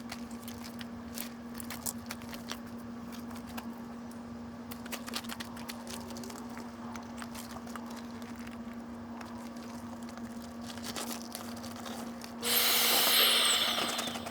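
Light scrapes, rustles and knocks from handling inflatable vinyl skirting pieces, over a steady low hum. Near the end comes a loud rush of noise lasting about a second and a half.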